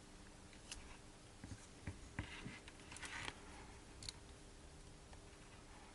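Faint handling sounds of wires being taped down to a bracket: a few light clicks and two short rustles of adhesive tape, about two and three seconds in.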